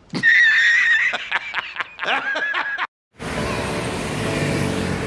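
Meme sound clip of a man's loud, exaggerated laughing: one held note, then quick repeated bursts, cut off sharply after about three seconds. After a brief dead gap, steady outdoor road noise with wind and traffic.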